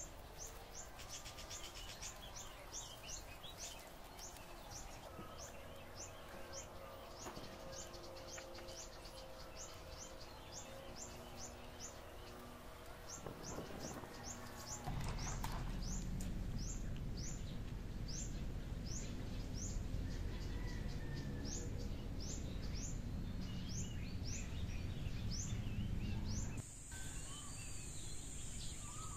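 A bird repeating a short, high, falling chirp about twice a second over outdoor background noise, which turns louder and lower about halfway through. Near the end the chirping gives way to a steady high-pitched hiss.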